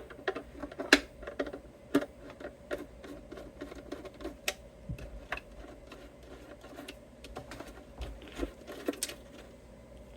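Irregular small clicks and taps of hand work on guitar hardware as the output jack is unscrewed and removed from a 1960s Silvertone 1446 electric guitar.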